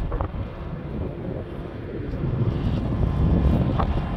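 Uneven low rumble of wind buffeting the microphone on a car ferry's open top deck, growing louder about two seconds in.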